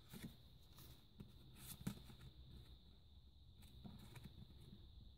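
Near silence, with a few faint rustles and light taps of paper and card being handled and shuffled.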